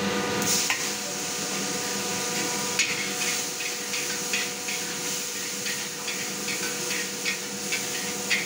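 A metal wok spatula and ladle scraping and clanking against a large wok during stir-frying, the clanks coming about twice a second from about three seconds in, over a steady hiss.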